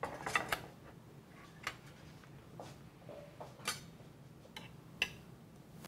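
Light clinks and taps of cutlery against plates: a handful of separate ones spread over a few seconds, over a faint steady room hum.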